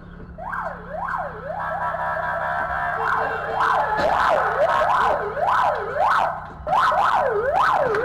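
Police vehicle siren sounding as a police van crosses, cycling in quick falling sweeps that each drop in pitch and jump back up, growing louder from about half a second in.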